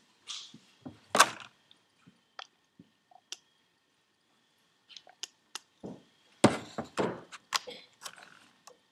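Hands handling turbocharger parts and tools on a workbench: scattered light clicks and knocks, with louder thunks and rustling about a second in and again from about six to seven seconds in.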